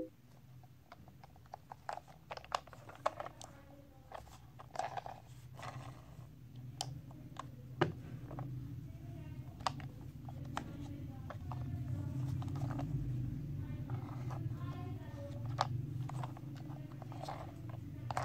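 Plastic toy train handled and turned over in the hands: scattered light clicks and knocks of hard plastic, over a low steady hum that grows louder from about six seconds in.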